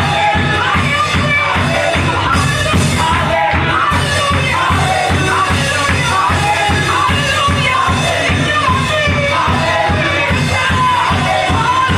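Gospel praise and worship music: a woman singing lead through a microphone over a steady beat.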